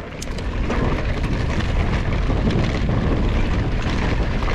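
Wind buffeting a GoPro's microphone while riding a mountain bike, mixed with trail noise from the tyres. It is a heavy, steady rumble that builds over the first second and then holds, with small scattered clicks and rattles.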